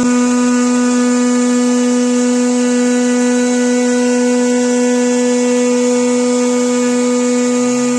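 CNC milling machine running at a steady speed: an unbroken hum with overtones and a hiss above it, without change.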